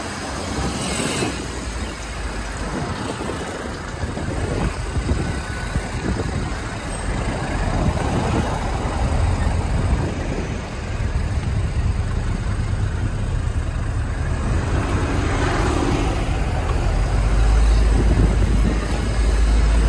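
Road traffic and the running engine of an open-top tour bus, heard from its upper deck as it drives along city streets. A low rumble grows louder near the end.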